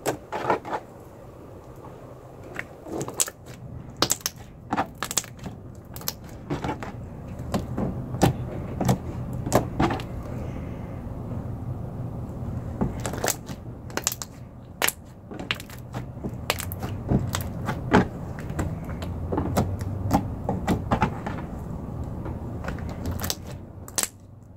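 Freshly mixed bubble wrap slime being squished and worked by hand, with many irregular sharp pops and clicks, often several a second, over a low steady hum.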